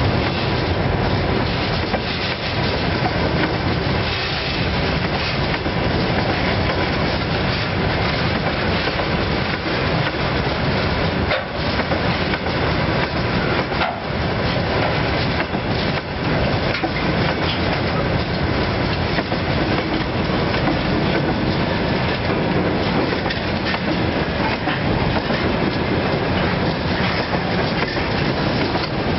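Long freight train of railway tank cars rolling past close by: a steady, continuous rumble and clatter of wagon wheels on the rails.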